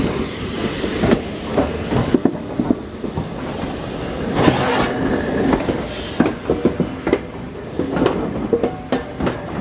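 Peppercorn A1 steam locomotive 60163 Tornado letting off steam with a loud hiss for about the first two seconds, then irregular clanks and clicks of the locomotive moving on the track.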